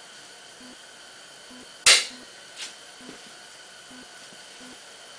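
A single sharp clank about two seconds in, followed by a softer knock, as the rake's hydraulic cylinder and hose fittings are handled.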